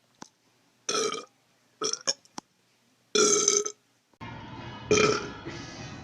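A person burping loudly several times: a long belch about a second in, a few short burps around two seconds, and another long belch past three seconds. After a change to a steady background hum, another loud burp comes near five seconds.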